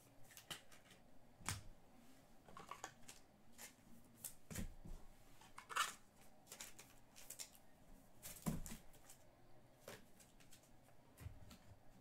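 Trading cards being handled: faint rustling and scattered light clicks, with sharper clicks about six seconds and eight and a half seconds in.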